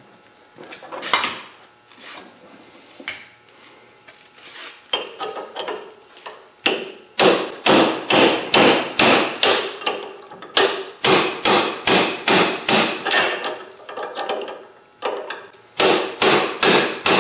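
Hammer pounding a cold chisel against a wheel bearing inner race on a steel front wheel hub, breaking the torch-cut race off the hub shaft. A few scattered lighter blows give way, about five seconds in, to steady pounding of two to three sharp metal strikes a second, with a brief pause near the end before the blows resume.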